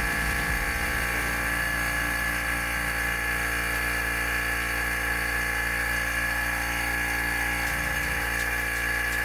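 Electric vacuum pump running steadily, drawing the air out of a vacuum chamber as the pressure falls toward about a tenth of an atmosphere.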